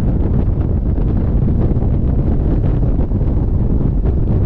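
Steady, loud wind buffeting on a microphone mounted on the outside of a Cessna 177RG Cardinal's fuselage as it taxis. The buffeting comes from the propeller wash, with the aircraft's engine and propeller blurred into the rumble.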